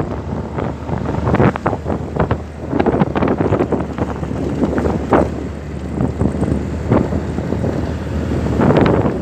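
Wind buffeting the microphone in loud gusts, over a steady low rumble.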